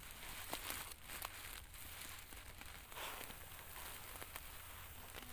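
Rice straw rustling and crackling faintly, with a few scattered light clicks.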